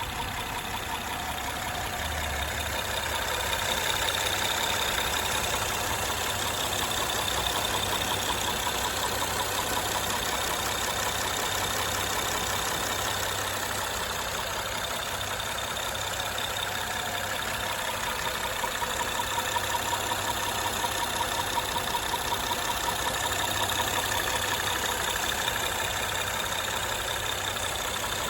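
2013 Honda Accord's 3.5-litre V6 running with a persistent rapid knocking tick, a little louder for several seconds past halfway. The noise remains after a new timing belt, tensioner and water pump and a valve adjustment, and the owner suspects a worn cam lobe.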